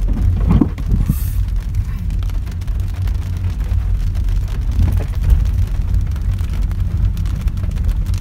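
Steady low rumble of road and tyre noise inside a car rolling slowly over wet pavement.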